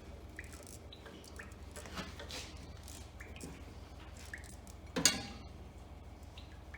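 Hand tools working on the water pump bolts of a Ford 8600 tractor: light metallic clicks and small clinks about once a second, then one louder metal clank about five seconds in, over a steady low hum.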